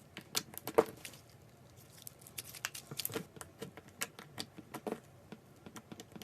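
Slime being squished and cut, making irregular sticky clicks and small pops, a few to several a second, some louder than others.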